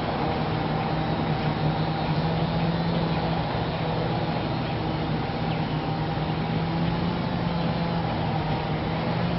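Whelen 4008 electronic tornado siren sounding its Wail tone, held at a steady pitch, over a noisy background. A low steady hum cuts off suddenly near the end.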